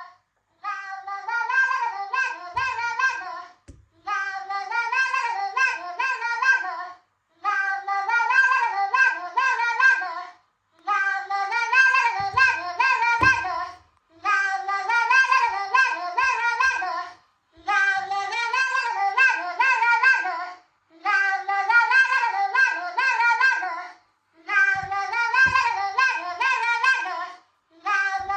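Smartphone alarm tone ringing: a high melodic phrase about three seconds long, repeating over and over with short gaps between.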